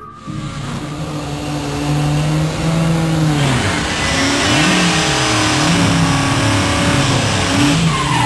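Drag car doing a burnout: the engine is held at steady high revs for about three seconds, then revved up and down about once a second, over the hiss of the rear tyres spinning on the track.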